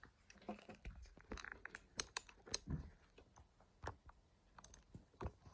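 Irregular small clicks, taps and knocks of metal parts being handled and set on a drill grinder's drill holder and angle fittings, with no motor running.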